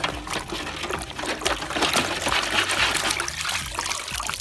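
Water trickling and splashing, as from muddy toy trucks being rinsed.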